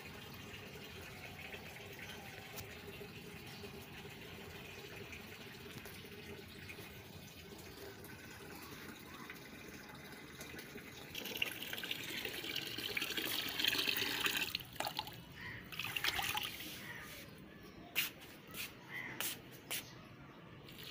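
Water running and trickling steadily, growing louder about 11 seconds in, with a few short knocks near the end.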